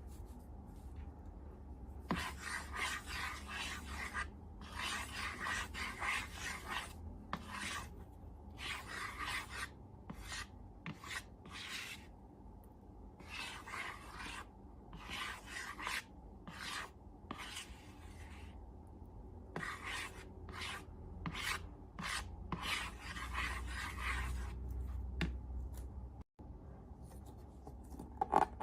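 Slime being worked and mixed by hand: a series of raspy rubbing strokes of uneven length with short pauses between them, beginning about two seconds in.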